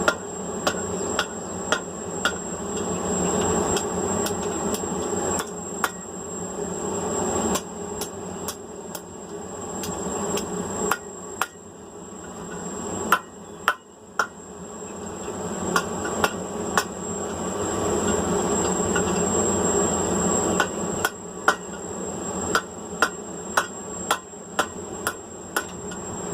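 Hammer blows on hot 3/8-inch rebar over the anvil horn as it is bent into a ring, struck unevenly about once or twice a second with a short pause midway. A steady high whine runs underneath.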